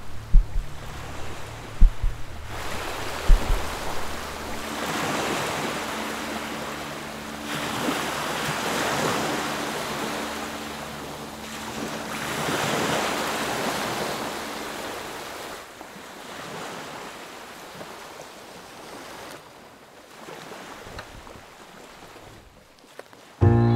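Ocean surf: waves rushing in and washing back, swelling three times before easing off, with some wind on the microphone.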